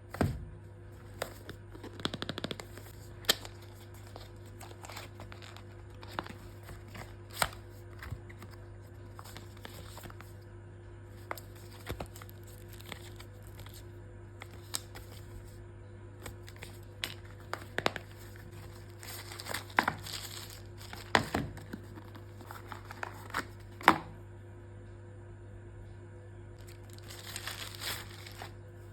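Packaging being handled during an unboxing: scattered clicks and taps with short bursts of crinkling and tearing of plastic and paper wrapping, over a steady low hum.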